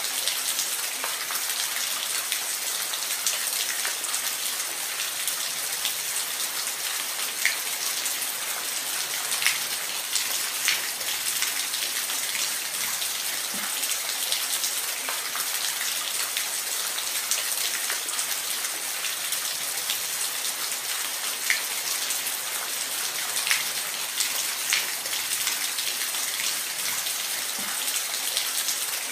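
Steady rain falling, a dense even hiss with scattered louder drops tapping on a surface.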